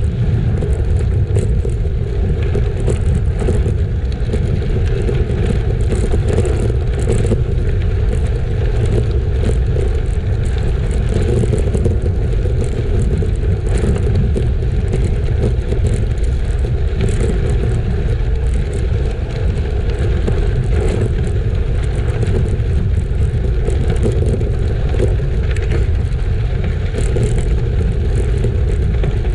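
Wind rumbling steadily on the microphone of a moving bicycle, mixed with the crunch and rattle of bicycle tyres rolling over a gravel trail.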